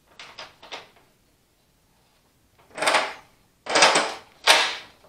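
Plastic shifter knob being forced onto the hydrostatic drive shift lever of a John Deere 185 Hydro lawn tractor: a few light clicks, then three short, harsh rubbing noises as the knob is worked down over the lever.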